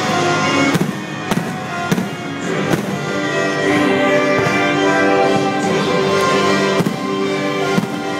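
Orchestral show music with strings plays continuously while fireworks shells burst overhead: several sharp cracks, four in the first three seconds and two more near the end.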